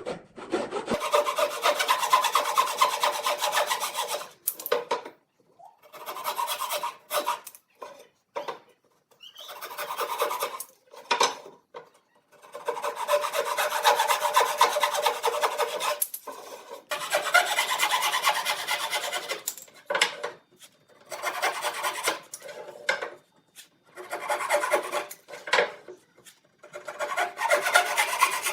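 Wood being rasped by hand: bursts of fast scraping strokes a second or a few seconds long, broken by short pauses.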